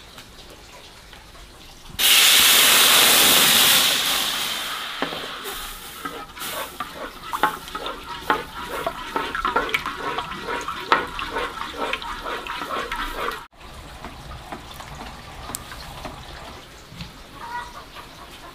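Water gushing from a tap for a couple of seconds, then running and splashing in a sink with a steady rhythm of about two strokes a second. It stops abruptly a little past halfway.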